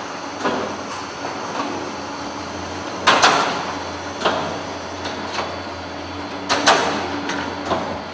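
Hardcover bookbinding machinery running: a steady mechanical hum with irregular sharp clacks and knocks from its moving parts, the two loudest about three seconds apart.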